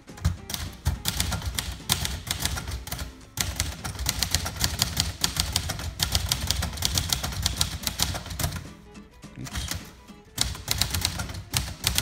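1958 Royal Quiet De Luxe manual portable typewriter being typed on at a brisk pace: a fast, steady run of key strikes, broken by a pause of about a second and a half near the end, then more typing.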